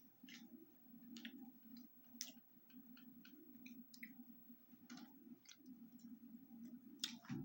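Near silence: faint scattered clicks and light crackles, about a dozen over the stretch, over a steady low room hum.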